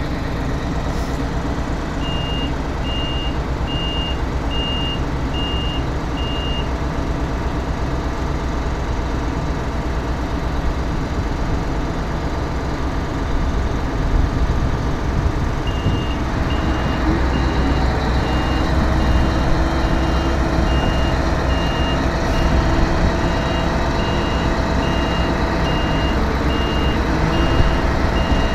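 Heavy diesel engines of a Claas Jaguar 870 forage harvester and a Hyundai tracked excavator running hard as they pull the bogged harvester out of soft mud. A reversing alarm beeps about one and a half times a second, from about two seconds in for about five seconds and again from about halfway. About halfway the engine note grows louder and changes pitch.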